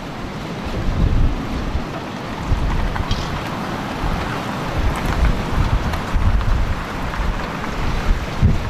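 Gale-force storm wind gusting hard, buffeting the microphone with uneven low rumbles.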